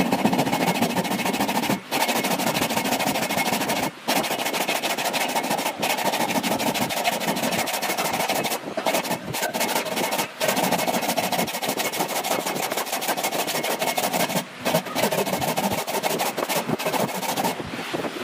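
Hand saw cutting through a wooden board: a continuous rapid rasp of the teeth biting the wood, broken by a few brief pauses.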